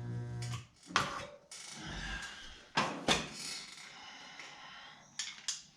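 Dent-pulling work on sheet-metal body panels: a short electric buzz at the start, then a series of sharp metallic clicks and knocks with scraping between them.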